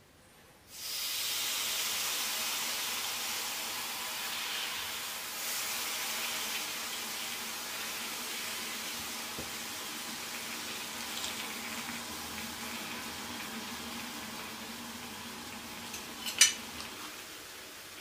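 Gummy jelly sweets sizzling under a heated metal ball pressed onto them. The sizzle starts suddenly about a second in as a steady hiss and slowly fades as the sweets melt and smoke. A single sharp click near the end.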